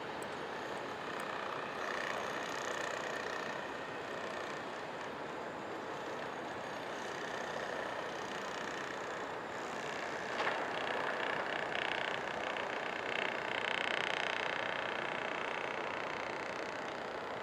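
City street traffic: a steady wash of passing cars and trucks, with a sharp knock about ten seconds in and a louder vehicle with a higher whine passing in the second half.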